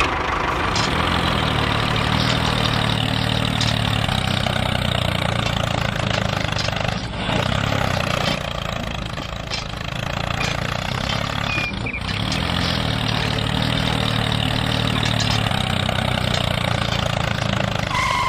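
Tractor engine running steadily with a low, even rumble, cutting off abruptly at the end.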